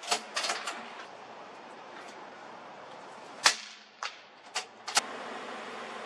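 Sharp cracks of .22 LR rifle fire: a few small ones in the first second, the loudest about three and a half seconds in, then three smaller ones in quick succession.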